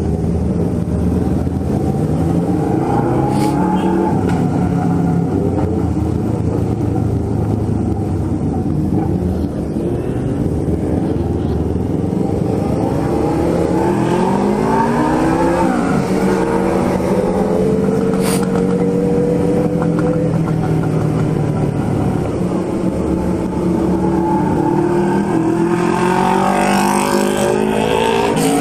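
Yamaha XJ6 motorcycle's inline-four engine riding through town, its pitch rising as it revs through a gear about halfway through and again near the end, dropping back at the shifts in between.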